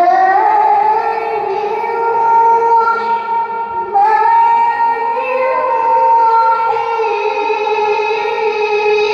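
A teenage girl's voice reciting the Quran in melodic tilawah style into a microphone, holding long high notes with gliding ornaments. The phrase breaks briefly for breath about four seconds in, then goes on.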